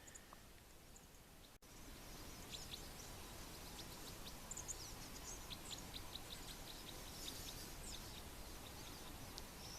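A flock of small songbirds chirping: many short, high call notes scattered through the trees, faint over a steady background hiss.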